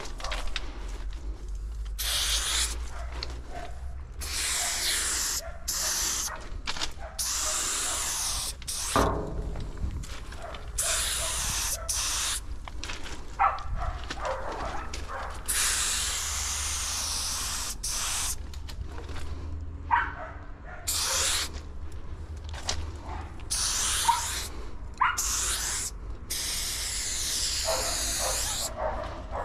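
Aerosol spray paint can hissing in repeated bursts of one to a few seconds, stopping and starting as light blue outlines are sprayed onto a freight car's metal side.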